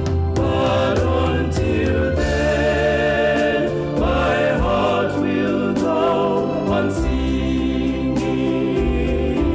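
A gospel hymn sung in four-part male vocal harmony, one singer multitracked, with a steady low bass line beneath the held chords. Light ticks keep time.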